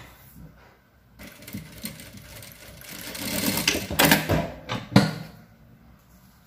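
Jack industrial sewing machine stitching satin bias binding onto tulle. It starts about a second in, speeds up into a fast steady rattle, and stops about five seconds in, with a couple of sharp knocks near the end.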